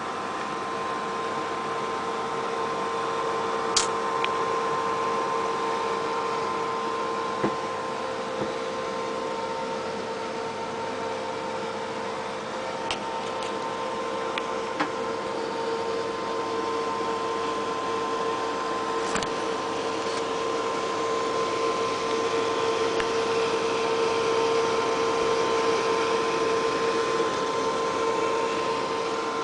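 Desktop computer running, its cooling fans giving a steady whir with a steady hum of fixed tones, and a few sharp clicks scattered through.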